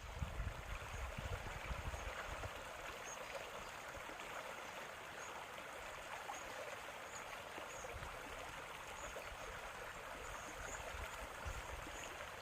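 Steady rushing of running water, like a stream, with some low rumbling in the first couple of seconds.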